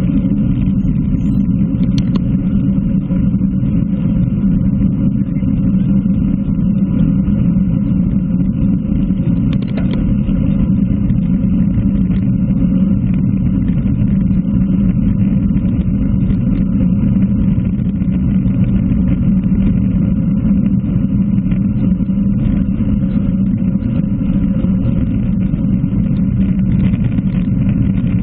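Steady wind rumble and tyre noise on an action camera's microphone on a road bike riding at about 40 km/h, deep and muffled with little treble.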